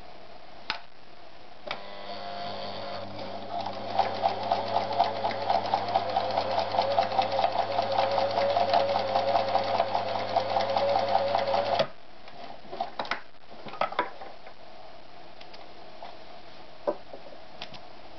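Privileg TopStar 796 Super Automatic sewing machine starting up, then stitching at speed through denim for about eight seconds with a steady motor hum and fast, even needle ticking before it stops suddenly. A few separate clicks follow.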